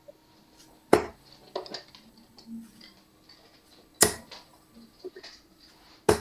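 Steel-tip darts striking a Winmau dartboard: three sharp hits a few seconds apart, the last near the end.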